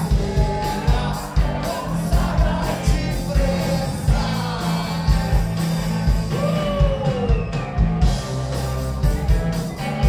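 Rock band playing live: distorted electric guitars and bass over a steady drum beat, with a voice singing over them.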